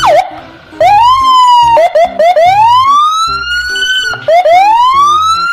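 Police car siren sounding rising wails: a few short yelps, then two long wails that climb steadily in pitch and cut off sharply at the top.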